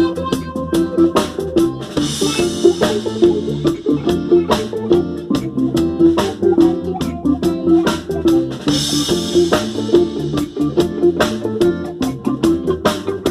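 A band playing an instrumental passage: drum kit keeping an even beat under guitar and sustained low notes, with a cymbal wash rising twice, about two seconds in and again past the middle.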